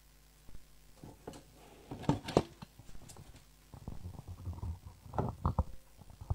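Irregular knocks, thumps and rustling handling noises, the loudest a pair of sharp knocks about two seconds in, then a busier run of low thuds and rustles near the end.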